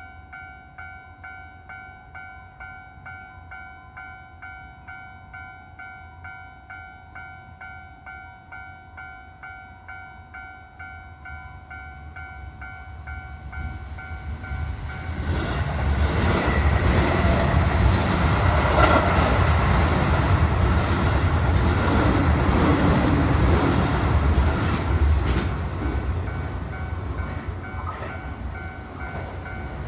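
A railway level-crossing warning bell dings in a quick, regular rhythm. About fifteen seconds in, a Keio Line electric train passes through the crossing, loud, with a few sharp clacks from the wheels. The train noise eases near the end and starts to rise again.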